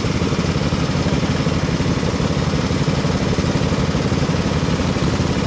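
Small engine of a garden tractor running steadily.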